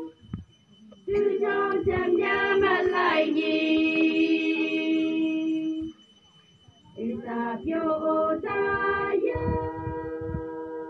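A group of women singing a traditional Naga song together, holding long notes, in two phrases with a short break of about a second between them.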